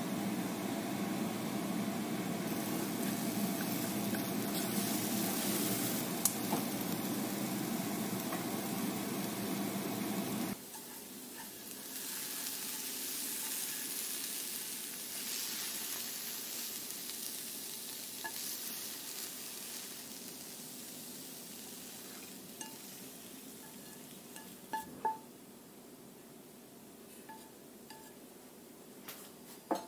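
Beaten egg and diced mushrooms sizzling steadily in a nonstick frying pan over a gas burner as they are stirred. About ten seconds in the sizzle cuts off abruptly; after that there is a quieter hiss and a few light knocks and clinks of the pan and chopstick against the plate.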